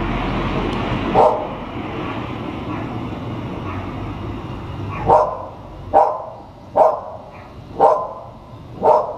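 A dog barking: a single bark about a second in, then five barks about a second apart in the second half, over a steady hum of street traffic.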